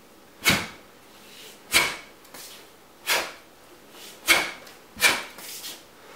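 About six short, sharp swishes, roughly one a second, each made as a taekwondo practitioner in uniform snaps through a palm upward block.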